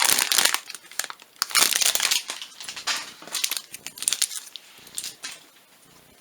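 Plastic packaging crinkling and rustling in the hands as it is opened and the doll's clothing pulled out, in irregular bursts that thin out toward the end.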